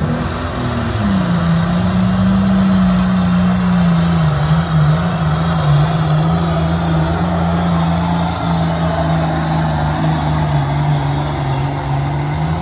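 International Harvester 1066 pulling tractor's turbocharged diesel run flat out under heavy load as it drags a weight transfer sled, belching black smoke. A loud, steady engine note with a hissing top, its pitch sagging a little as the sled bears down.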